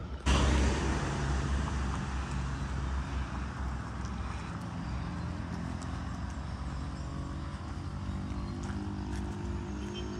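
A motor vehicle on the road: a sudden loud rush of engine and tyre noise just after the start that eases off over a few seconds, then a steady low engine hum.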